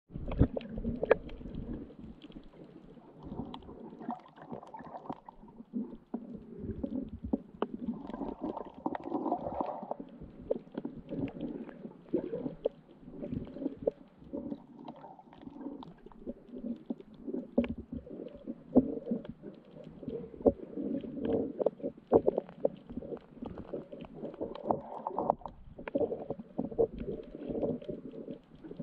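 Underwater sound picked up through a GoPro's waterproof housing: a muffled, uneven rumbling and sloshing of water, with frequent irregular clicks and knocks.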